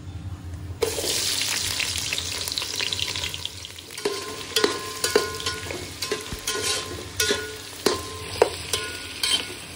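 Sliced onions dropped into hot oil in an aluminium pot, sizzling loudly from about a second in. From about four seconds in, a metal spoon stirs them, clanking against the ringing side of the pot roughly every half second while the frying goes on.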